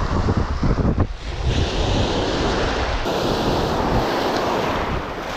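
Sea surf washing in, with a hissing surge that builds about a second and a half in and eases near the end, while wind buffets the microphone with a low rumble.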